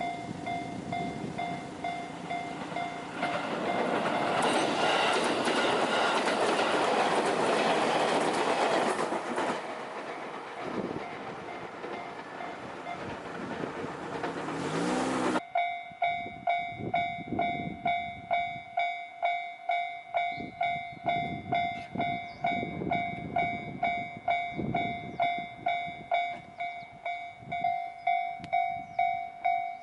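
Japanese level-crossing warning bell ringing at about two strokes a second while a JR Kusatsu Line train passes. The train's rush drowns the bell from about 4 to 10 seconds in. About halfway through, the sound cuts off abruptly and the bell picks up again over a lower train rumble.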